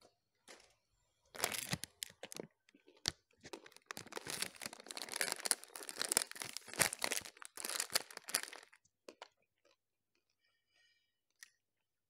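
Plastic ice-cream wrapper crinkling and rustling as it is handled, in dense crackly bursts for about seven seconds before stopping.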